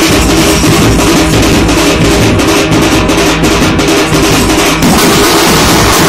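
Street drum band playing a fast, loud rhythm: a large bass drum struck with a stick, with smaller snare-type drums rattling alongside.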